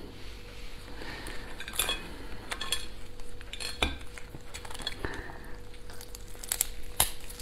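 Cooked lobster shell being cracked and pulled apart by hand over a plate, with scattered crackles and sharp snaps over a faint steady hum. The loudest snaps come about two and four seconds in and near the end.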